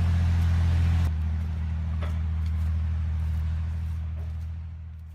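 Ural truck's diesel engine running at a steady pitch, a low drone that fades near the end.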